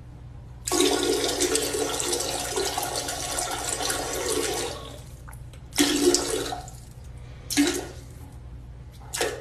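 Toilet flushing: a rush of water for about four seconds, followed by three short bursts of sound.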